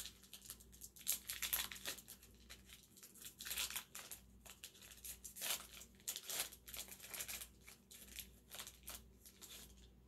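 Trading card pack being torn open by hand, its wrapper crinkling with irregular crackles and tears.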